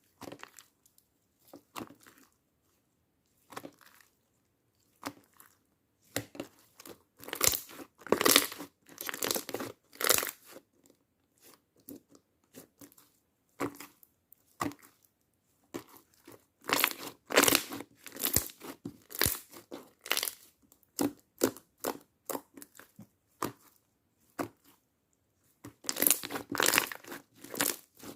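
Slime being pressed, stretched and folded by hand, giving irregular crackling clicks and pops in busy clusters with short quiet gaps between them.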